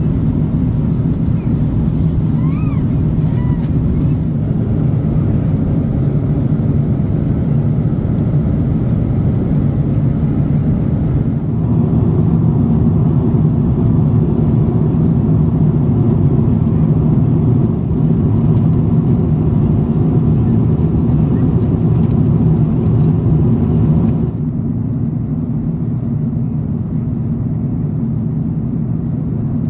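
Airliner cabin noise inside a four-engine Airbus A340-300 in flight: a loud, steady low rumble of engines and rushing air. It shifts abruptly twice, about 11 and 24 seconds in.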